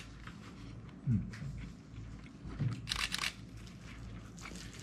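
Eating noises: crunching and chewing with small clicks and clatters, and a denser cluster of crisp crackles about three seconds in. A brief low sound falling in pitch, about a second in, is the loudest moment.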